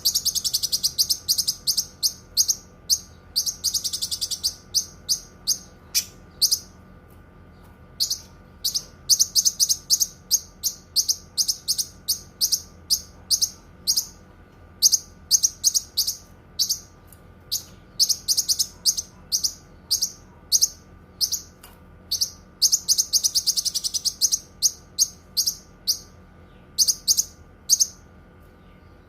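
Cucak kinoi singing: rapid runs of sharp, high chirps, sometimes run together into dense trills, with short breaks between phrases. A faint steady hum sits underneath.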